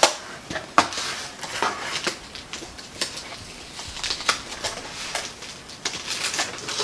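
Hands rummaging through the contents of a cardboard mystery box: papery rustling with many small, sharp clicks and clinks from items being picked up and handled.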